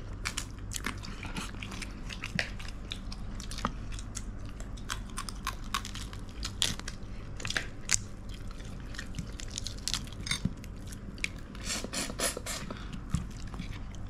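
Close-up eating sounds: chewing and crunching on fried crab with roe, with many quick, irregular small cracks and clicks as the crab shell is pulled apart by hand. A low steady hum runs underneath.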